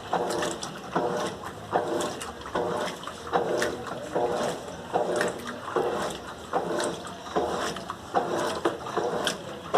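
Colormaq LCA11 top-loading washing machine agitating a load of towels and bed linen in water, its motor hum and the slosh of the water rising and falling about every 0.7 s as the wash action reverses direction.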